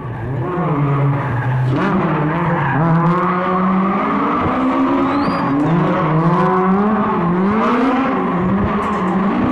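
Millington 2.4-litre four-cylinder racing engine in a Mk2 Ford Escort, revving hard through a tight autocross course. Its pitch climbs and falls repeatedly as it is held high in the powerband, with a brief tyre squeal about five seconds in.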